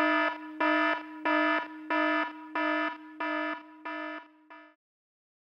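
Electronic alarm buzzer beeping at one steady pitch, about eight beeps at roughly one and a half a second, growing gradually fainter. The last beep is cut short and the sound stops about a second before the end.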